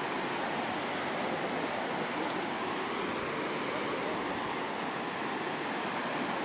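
Steady rushing of a muddy river in flood, overflowing its banks after rising far above its usual level.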